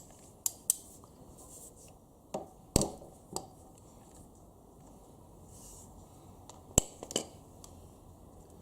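A few sharp clicks and light knocks at irregular intervals, the loudest about three seconds in and again near the end, of small hard objects being handled during hand work.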